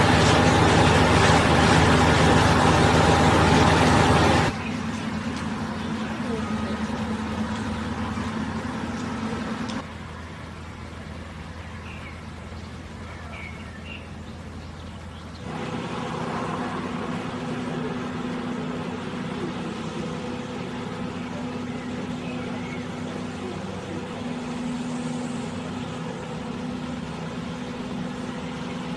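Diesel engine of a Matisa track maintenance machine running with a steady hum. It is loud and close for the first few seconds, then drops suddenly to a fainter, more distant hum that steps down and up again at the cuts.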